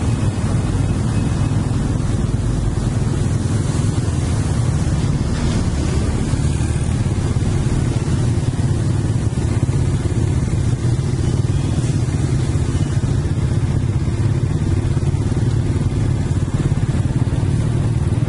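Steady low engine rumble with road noise, heard from a vehicle moving along close behind a slow-moving heavy-haul truck and trailer.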